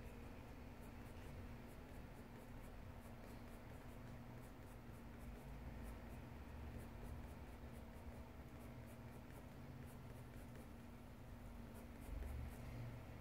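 Faint scratching of a colouring pencil on sketchbook paper in many quick, short shading strokes.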